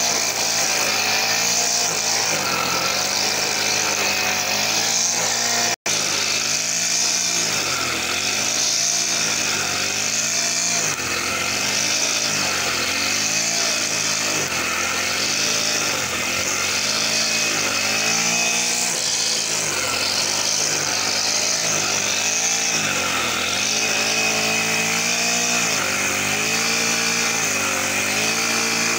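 Brush cutter with a nylon-line trimmer head running at high speed while cutting grass, its engine pitch dipping and recovering every second or two as the line sweeps into the grass. A split-second dropout about six seconds in.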